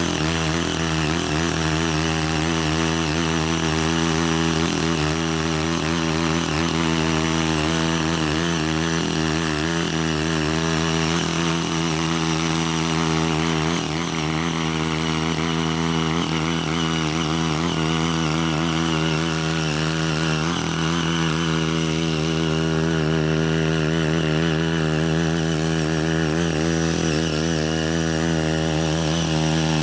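CY80 mini power tiller's small engine running steadily under load while its rotary tilling blades work dry paddy-field soil, its pitch wavering slightly.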